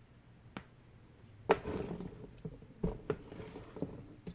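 Fidget toys being handled and set down: a handful of short, sharp clacks and taps, the loudest about a second and a half in.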